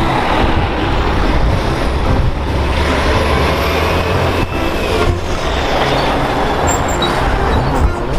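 A heavy vehicle running with a steady, continuous low rumble.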